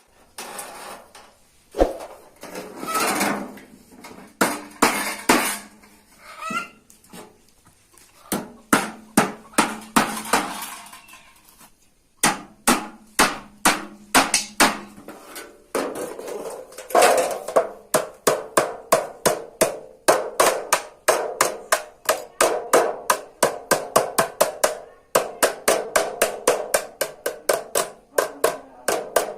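Hammer blows on a sheet-metal bread tray being shaped by hand, each strike ringing briefly. The blows are scattered at first, then from about twelve seconds in settle into a steady run of two to three strikes a second.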